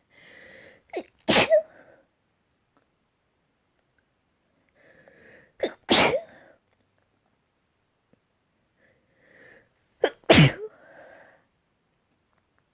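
A person sneezing three times, roughly four seconds apart, each loud sneeze preceded by a short breathy build-up.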